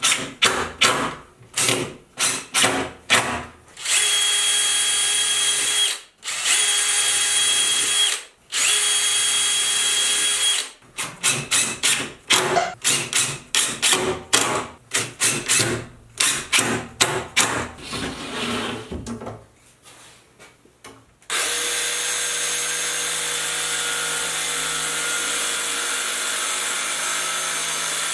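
DeWalt cordless drill driving screws into a metal hinge, in many short trigger bursts and three steady runs of about two seconds each. Near the end a power tool runs steadily for about seven seconds.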